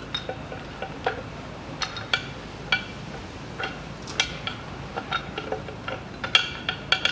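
Irregular metallic clinks and taps, some with a short ring, as a steel bearing retainer flange is seated on a rear axle shaft and turned against the drum-brake backing plate. The loudest clinks come near the end.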